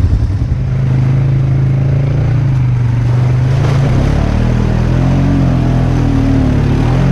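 ATV engine revving under load, a steady note that climbs and wavers about four seconds in as the throttle is opened harder. The quad is high-centered on a log in a mud hole and can't get enough speed to get through.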